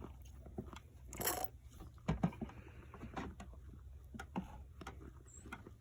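Slime being stirred in a bowl just after the activator goes in: scattered soft sticky clicks and short scrapes, with a brief louder scrape a little over a second in.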